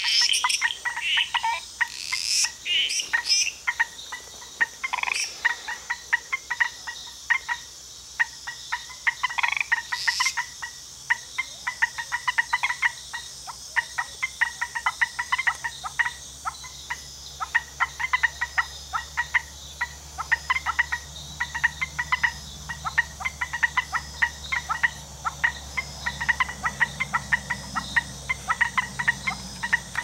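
Chorus of treefrogs, yellow treefrogs among them, calling in dense streams of short rapid notes. A few louder, higher calls stand out in the first ten seconds, and a faint low hum joins in the second half.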